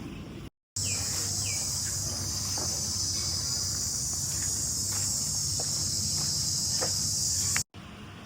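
Insects droning in a steady, high-pitched chorus, with scattered short bird chirps and calls over it. The drone starts and stops abruptly.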